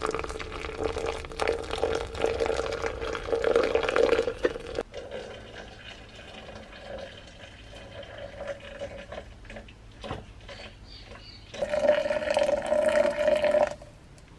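Water poured from a kettle into a glass French press onto ground coffee, a steady stream splashing and filling with a ringing tone. It runs for about five seconds, goes quieter, then comes back louder from about twelve seconds in with a slightly higher tone and stops shortly before the end.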